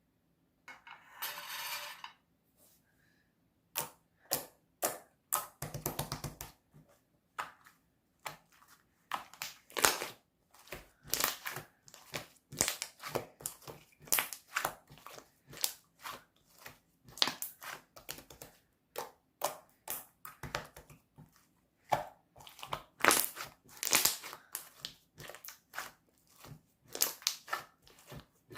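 Slime being pressed and played with by hand: a dense, irregular run of wet crackling clicks and pops, with a short rustling stretch about a second in.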